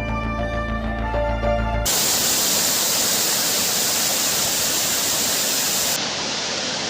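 Background music that stops abruptly about two seconds in, then the loud, steady rush of falling water from a waterfall.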